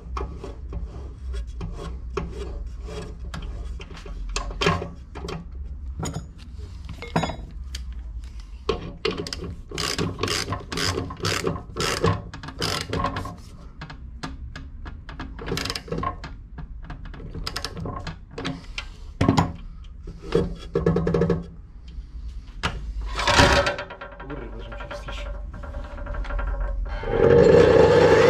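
Clicks and metallic knocks of a blade being fitted to a Yato mitre saw, with the arbor bolt tightened by a ratchet wrench whose pawl clicks in quick runs of strokes. About a second before the end the saw's electric motor starts and runs loud and steady.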